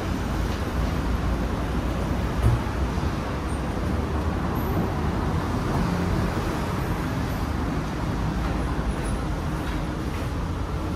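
Steady city road traffic noise with a low rumble of passing vehicles, and one short thump about two and a half seconds in.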